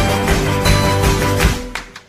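Background music with a steady beat and sustained notes; it drops sharply in level near the end.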